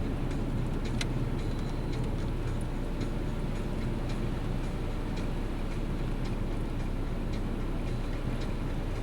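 Car driving on a snowy road, heard from inside the cabin: a steady low engine and road rumble, with light ticks here and there.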